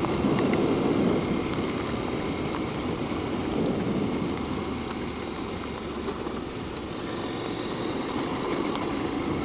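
Husqvarna Norden 901 adventure motorcycle's parallel-twin engine running steadily while riding up a gravel track, mixed with tyre and wind noise.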